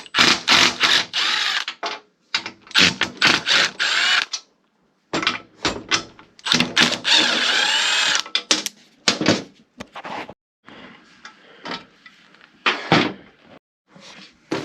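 Workshop tool noise: several loud bursts of a second or two each in the first half, with sharp knocks and clanks between them, then fainter scattered knocks.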